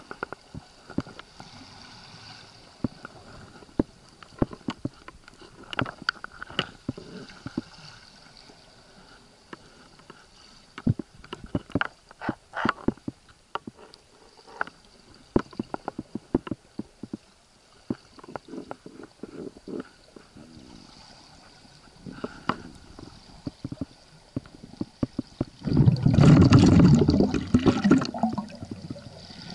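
Underwater sound as picked up by a camera below the surface: scattered sharp clicks and knocks over a faint steady hiss. Near the end comes a loud rush of gurgling water lasting about two and a half seconds.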